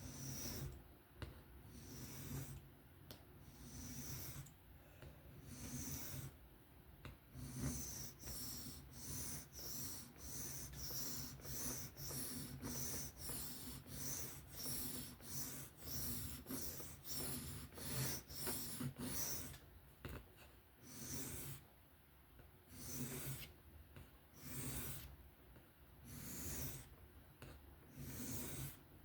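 Knife blade of 154CM steel being stroked across a sharpening stone freehand, each stroke a short rasping scrape. The strokes come about one every two seconds at first, speed up to about two a second for a long stretch in the middle, then slow again near the end. This is the blade's edge bevel being ground to raise a burr along that side.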